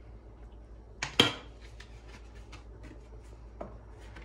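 Kitchenware knocking: two sharp clinks in quick succession about a second in, a softer one near the end, with a few faint ticks between.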